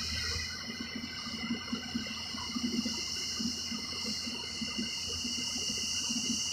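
Steady insect chirring, with small irregular low patters underneath.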